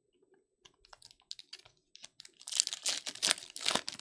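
Foil wrapper of a 2024 Bowman Chrome baseball card pack being torn open and crinkled by hand: a few light clicks, then dense crackling from about halfway through.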